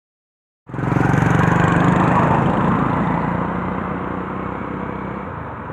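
An engine running steadily, cutting in under a second in and then slowly fading.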